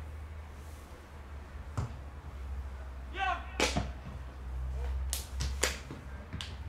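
About five sharp knocks spread through, with a brief pitched call, like a shout, a little past three seconds in, over a low steady rumble.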